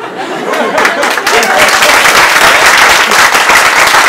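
Audience applauding, swelling over about the first second into steady, loud clapping.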